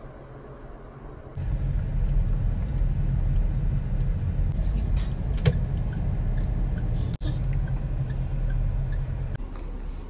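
Steady low road and engine rumble inside a moving car's cabin. It starts about a second in, cuts out for an instant near seven seconds, and gives way near the end.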